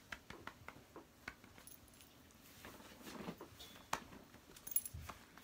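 A small dog moving about and being handled: scattered light clicks and taps with some rustling. A brief faint jingle and a soft thump come near the end.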